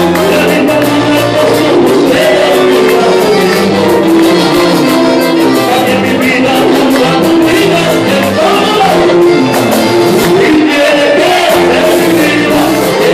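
Live Latin band music led by a button accordion, with electric guitar, a scraped metal güiro, a hand drum and a singer on microphone, playing at a steady dance rhythm.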